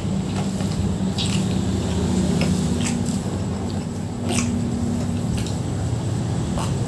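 Eating sounds: a scatter of short, sharp mouth clicks and smacks from chewing rice and chicken, over a steady low hum.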